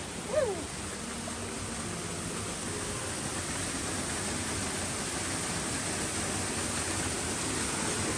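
Steady rushing of a stream or waterfall, an even hiss with no changes.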